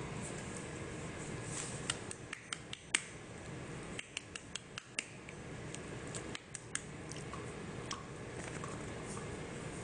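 Newspaper crinkling and crackling under cocker spaniel puppies' paws as they move about the pen, a string of sharp little ticks and crackles that is busiest in the middle, over a steady background hiss.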